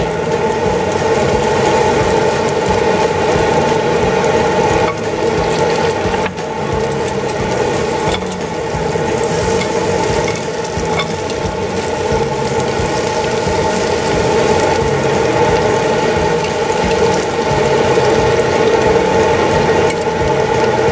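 Butter and slices of bread sizzling as they fry in a frying pan, moved about with metal tongs, over a loud steady mechanical hum.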